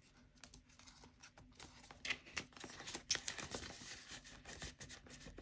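Clear plastic binder pockets and pages crinkling and rustling as they are turned and handled, with scattered light taps and clicks, the loudest about two and three seconds in.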